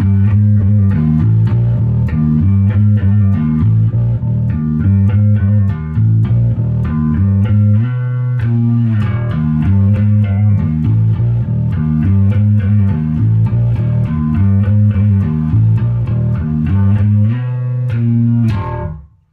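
Gibson Les Paul Money Bass electric bass played on its bridge pickup alone. A repeating riff of finger-plucked low notes stops just before the end.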